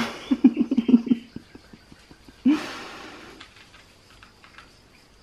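A person laughs in short pulses at the start and lets out another breathy laugh about two and a half seconds in. Between and after, a cat crunches dry kibble from a plastic tray, a run of faint clicks.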